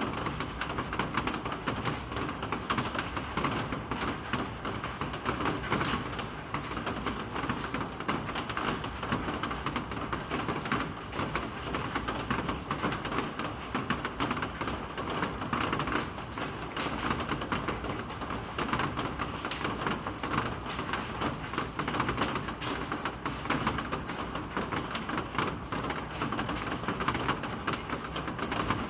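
Steady rain falling, a dense patter of many drops with no let-up.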